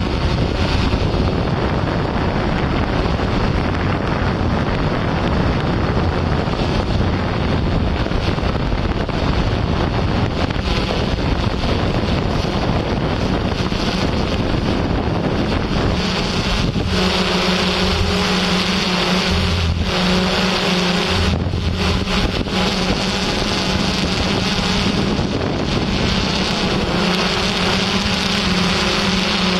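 Wind rushing over the microphone for the first half. From a little over halfway through, a steady low multi-tone motor hum joins the wind, with a few brief dropouts soon after it starts.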